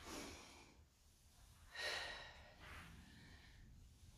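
Faint breaths of a woman exercising, taken in time with her side lunges, two of them about two seconds apart.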